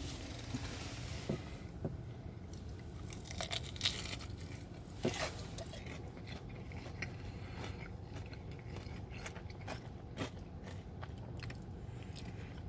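Person biting into and chewing a crispy fried chicken tender close to the microphone, with scattered crunches of the breading, the sharpest about four and five seconds in.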